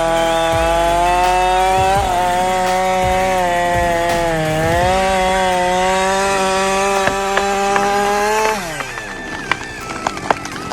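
Stihl MS-881 chainsaw running at full throttle through wood, its pitch sagging briefly under load about four seconds in. Near the end the engine winds down, and a few sharp clicks and knocks follow.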